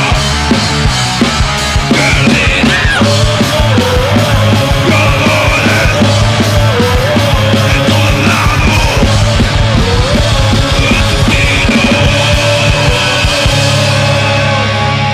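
Thrash metal band playing: distorted electric guitars and bass over fast, dense drumming, with a high line bending in pitch over the top. The drums stop near the end, leaving held guitar chords ringing.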